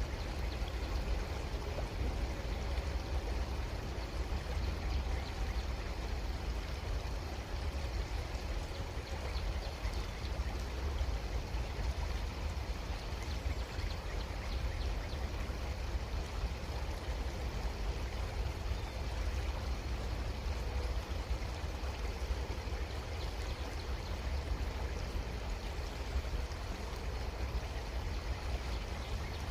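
A creek's water flowing steadily, an even rushing with a low rumble underneath.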